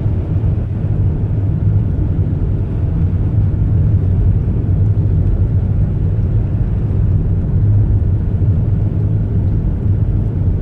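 A car driving: a steady low rumble of engine and road noise, with no change in pace.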